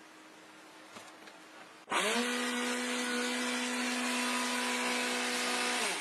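Small electric motor and fan of a homemade vacuum cleaner switched on about two seconds in, spinning up quickly to a steady whine with an airy hiss, then switched off near the end, its pitch starting to fall as it winds down.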